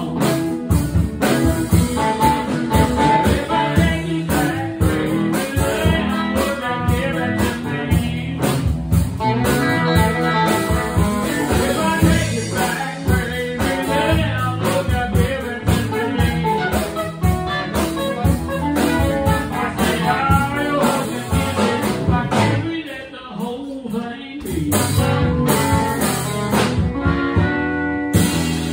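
Live band with guitars playing, with a brief quieter passage near the end.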